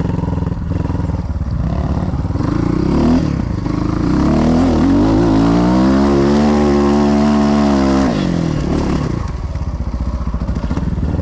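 Enduro dirt bike's single-cylinder engine revving under throttle. The revs climb about two seconds in, hold high for about three seconds, then drop off sharply about eight seconds in and carry on lower.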